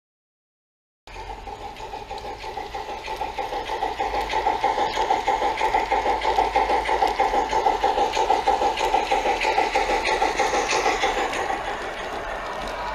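G-scale garden model train running along the track: its motor and gearing whir with a fast, even rattle of wheels on rail. It starts about a second in, grows louder over the next few seconds and eases off a little near the end.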